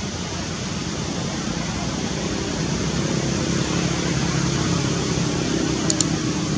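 Steady hiss of background noise, with a faint low hum joining about two seconds in and two quick clicks near the end.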